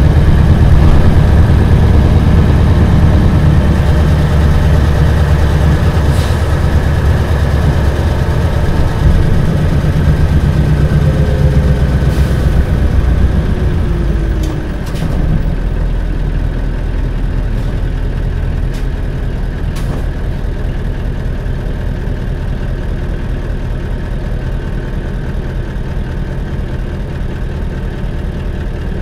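Engine and running noise of a 1997 Isuzu Cubic KC-LV380L city bus, heard from inside the bus. It is loud and steady at first, with a falling whine a little past ten seconds in as it eases off. About halfway through it drops to a quieter, steady engine note, with a few faint clicks.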